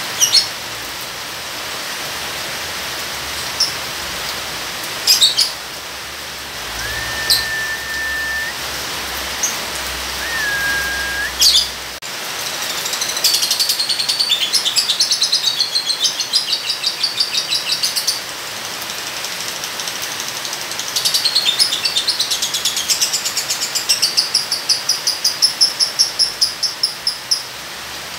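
Lovebird calling: a few short sharp chirps, then two long rapid chattering trills in the second half, the ngekek song, over a steady hiss of rain.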